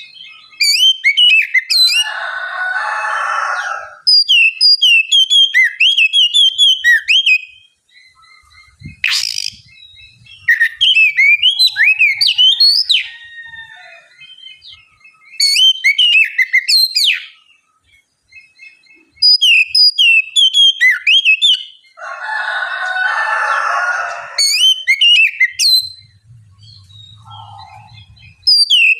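Oriental magpie-robin singing in bursts of quick, clear whistled phrases that sweep up and down, with short pauses between the bursts. Twice, a harsher rasping passage sounds under the song.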